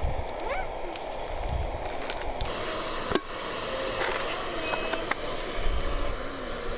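Wind gusting on the microphone: a steady rushing noise with low rumbling surges, faint distant voices, and one sharp click about three seconds in.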